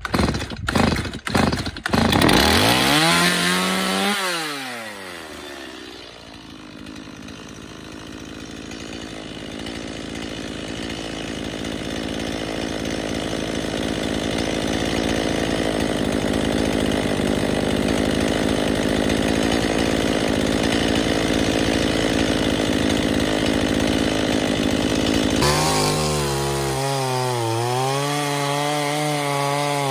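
Stihl MS 180 two-stroke chainsaw: after a few short rattles it starts about two seconds in, revs up and settles back. It then runs steadily, its sound slowly building. Near the end it switches abruptly to revving up and down.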